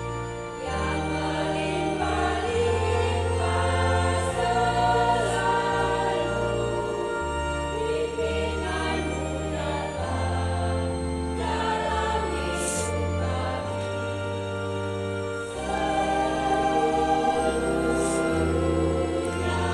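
Mixed church choir singing a hymn in parts, accompanied by an electronic organ holding sustained low bass notes that change every second or two.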